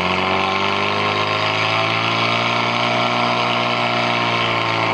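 Portable fire pump's engine running at full throttle, holding steady high revs as it pumps water to the hose lines.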